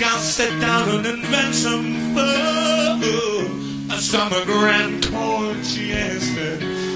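Live rock band playing with a man singing lead vocals.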